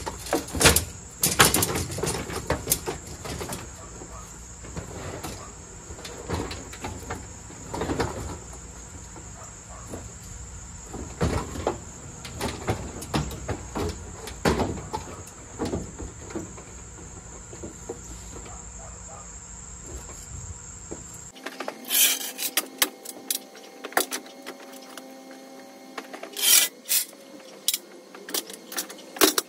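Metal clanks and rattles of a Honda walk-behind mower being rolled up an aluminium loading ramp and bumped into a pickup's bed, then the ramp being lifted and handled, with sharp knocks throughout. A steady high insect drone runs behind for most of it; in the last third a steady hum takes its place.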